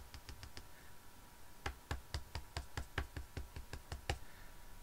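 A clear-mounted rubber stamp and a Memento ink pad tapped together over and over to ink the stamp: a run of quick light taps, about three or four a second, coming faster in the second half.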